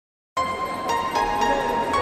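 Background music with steady held notes, starting abruptly about a third of a second in after a brief silence.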